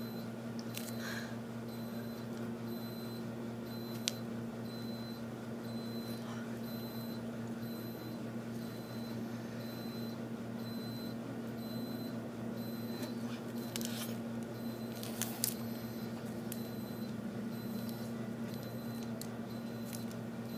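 Steady low hum with a few brief crinkles and clicks of a chocolate bar's paper-and-foil wrapper being handled, the sharpest about four seconds in and again near fifteen seconds.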